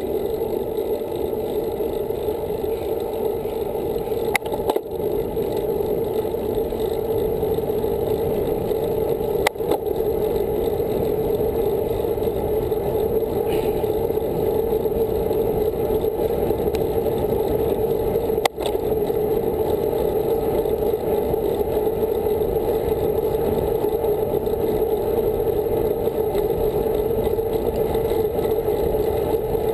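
Steady, dull rush of wind and tyre noise from a bicycle riding on asphalt, picked up by a camera on the handlebars. Two sharp clicks come about a third and two-thirds of the way through.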